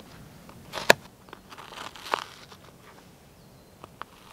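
Knife cutting through a red onion on a cutting board: a few sharp, separate crunching cuts with the blade meeting the board, the loudest about a second in and another just after two seconds.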